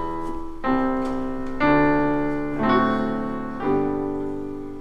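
Piano playing slow sustained chords, four struck about a second apart, each fading before the next.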